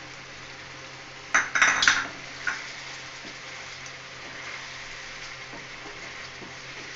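Thick chicken curry sizzling in a frying pan while a wooden spatula stirs and scrapes through it, with a short burst of clattering against the pan about a second and a half in.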